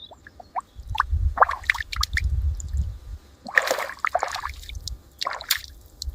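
Water splashing and dripping in short, irregular bursts over a low rumble.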